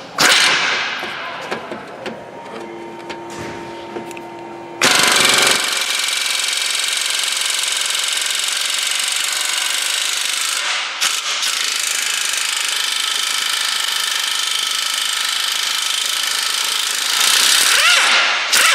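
Pneumatic impact wrench hammering on a seized lower control arm bolt, starting about five seconds in after some clicks of tool handling and running steadily to the end, with a brief break about halfway; the gun is working a stubborn bolt loose.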